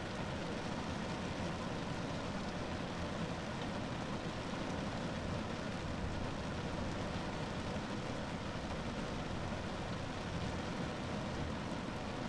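Steady rain falling on a car roof, an even wash of sound with no single drops standing out.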